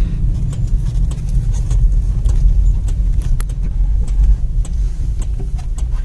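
Car driving, heard from inside the cabin: a steady low rumble of engine and road noise, with scattered light clicks and taps.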